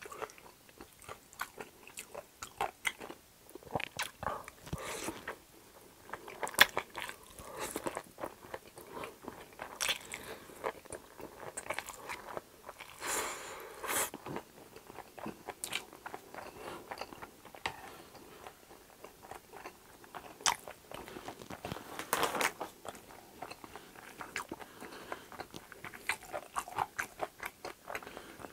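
Close-miked eating sounds: spicy jjolmyeon noodles slurped in and chewed with a full mouth, giving a steady stream of wet smacks and small mouth clicks.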